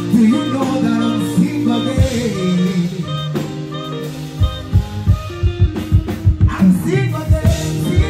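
Live band music, with drum kit and electric guitar, and a male singer singing into a handheld microphone through the PA. A steady kick-drum beat comes in strongly about halfway through.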